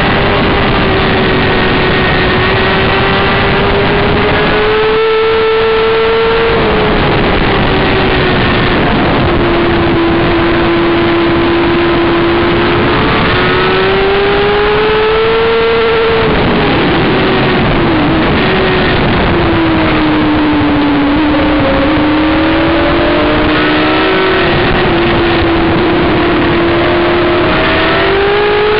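Inline-four sportbike engine running hard at high revs on track, its pitch climbing under acceleration and falling away under braking several times, with wind rushing over the microphone.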